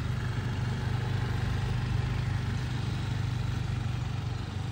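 Motor scooter engine running steadily as it is ridden, a low, even drone.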